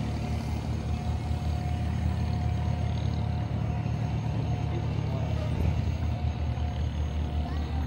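An engine idling: a steady low hum, with a thin steady tone over it that stops about halfway through.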